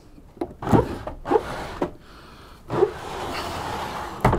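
A boat's saloon door being opened by hand: a series of knocks and clunks from the latch and door, a short stretch of rushing noise, and a sharp knock near the end.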